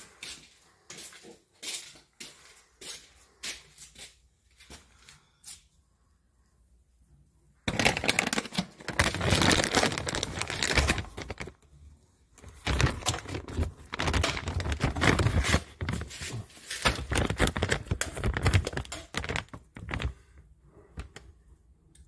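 Rustling and rattling of dry dog food being handled for a puppy's meal. Scattered light clicks and taps come first, then after a short quiet gap loud bursts of rustling and rattling start about eight seconds in and keep returning until near the end.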